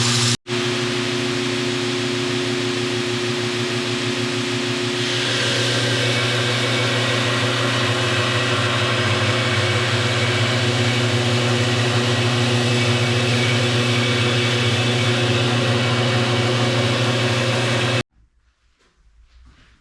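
Electric grinder running steadily on steel, a constant motor hum under a broad grinding hiss. The hiss gets brighter about five seconds in, and the sound cuts off sharply near the end.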